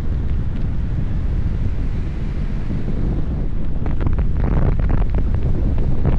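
Airflow from a paraglider in flight buffeting the camera microphone: a loud, low, steady wind rumble, with a few sharp crackles about four seconds in.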